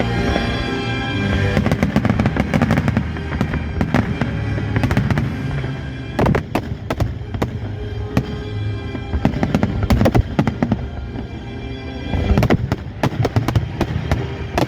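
Festive fireworks salute going off in several clusters of rapid sharp bangs and crackles, over music playing throughout.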